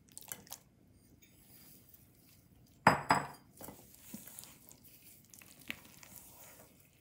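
Stainless-steel mixing bowl clanking twice about three seconds in, ringing briefly, as bowls and spatula knock against it. Then softer knocks and the scrape and squelch of a silicone spatula folding mashed banana into thick batter.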